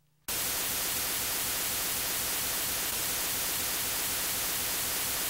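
Steady, loud hiss of static that cuts in abruptly just after the start and cuts off suddenly about five seconds later.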